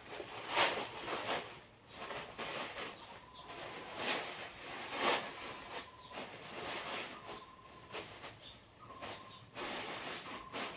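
Plastic packaging and paper wrapping rustling and crinkling in irregular bursts as a sari is unpacked and handled.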